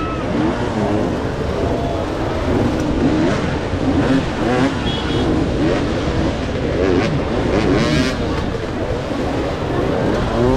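Several off-road racing motorcycles revving on the course, their engine notes rising and falling over one another.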